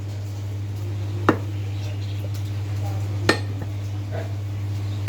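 Three sharp metallic knocks about two seconds apart, typical of a butcher's knife or cleaver striking while cutting meat, over a steady low hum.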